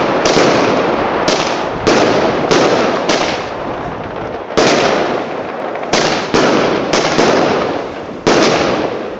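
Bonfireworks 'City Lights' 25-shot firework cake firing shot after shot: about eleven sharp bangs at uneven intervals of half a second to a second and a half, each trailing off in a fading rush of noise, with a short lull around the middle.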